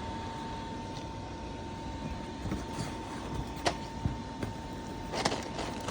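Electric air blower of an inflatable bouncy house running, a steady rumble with a constant thin whine. A few sharp knocks come in the second half, the loudest about five seconds in.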